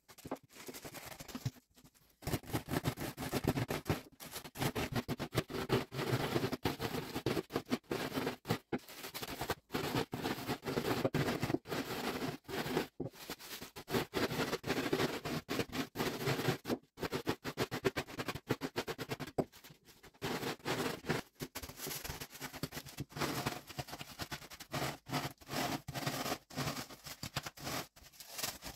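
Round biscuits being crushed inside a zip-lock plastic bag with a wooden rolling pin: a steady run of crunching and crackling as the biscuits break, with the bag crinkling, stopping briefly a few times.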